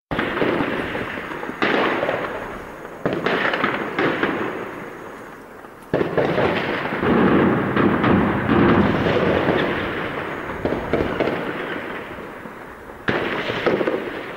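Heavy gunfire in a battle: loud reports every second or two, each trailing a long rolling echo that dies away over a few seconds, with a denser run of shots around the middle.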